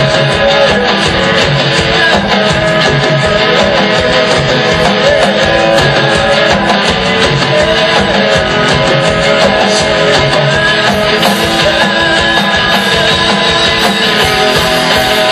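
Loud live noise-rock band playing: distorted electric guitar tones held over fast, dense drumming, a thick unbroken wall of sound.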